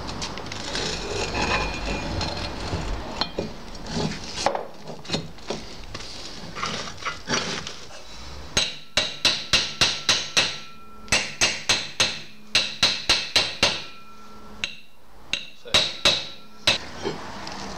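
Rapid sharp metal knocks with a ringing tone, in runs of about four blows a second through the second half, struck on the steel roller tube and gear housing of a Honda Shanks roller mower. Before them come softer scraping and handling of the parts, with a few scattered knocks.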